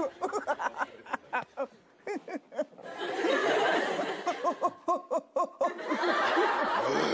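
A man gagging and retching with short choking cries, including a quick run of them about five seconds in, over laughter from a studio audience.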